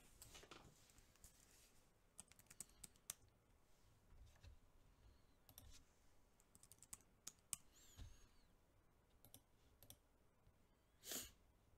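Faint, scattered clicks of a computer mouse and keyboard, some in quick runs of several, in a quiet small room. A short, louder rush of noise comes near the end.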